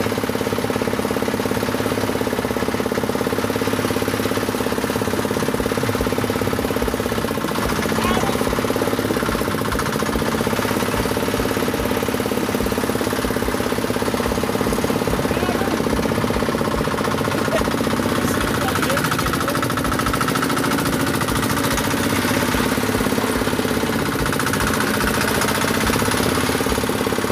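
A Toyama engine driving a small fishing boat, running steadily with a rapid, even knocking beat.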